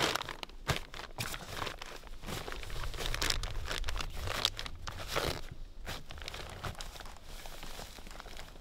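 Hard-shell rooftop tent's fabric crinkling and rustling in a run of short, irregular bursts as it is pushed down into the shell to close it.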